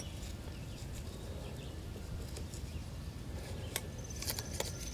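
A few small clicks near the end as a coil spring is hooked onto the eye of a screw-in awning anchor auger, over a low steady outdoor background.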